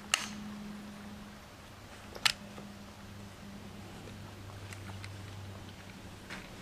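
Two sharp metallic clicks about two seconds apart, from the working parts of a Werndl M1873/77 rifle being handled, with a fainter click near the end.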